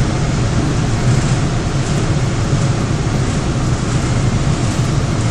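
Seoul Metro 4000-series subway car running, heard from inside the car: a steady low rumble of wheels on rail and running gear, with faint light ticks.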